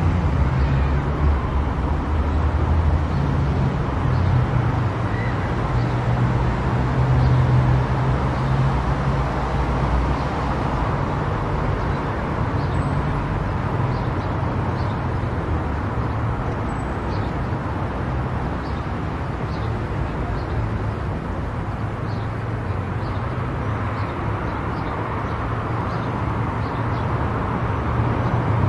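Car driving at speed on a highway: steady engine drone and tyre and road noise.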